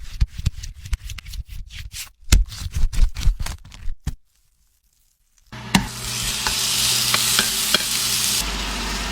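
A run of quick, irregular taps and clicks of kitchen work. After a short break, food starts sizzling steadily in hot oil in a pan, with a few pops.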